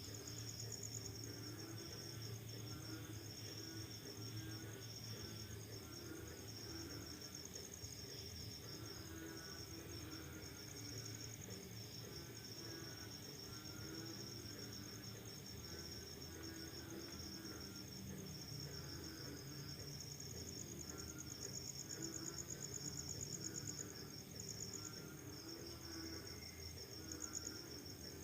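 Night chorus after rain: crickets trilling in a steady high, pulsing chirr, with frogs calling in repeated pulsed croaks lower down. The cricket trill swells louder for a few seconds past the middle.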